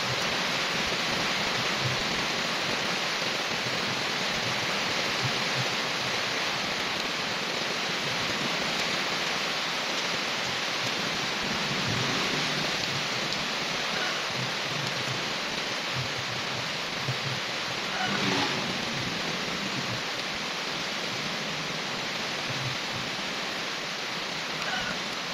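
Steady rain falling on trees, leaves and a wet paved yard: an even, unbroken hiss of rainfall.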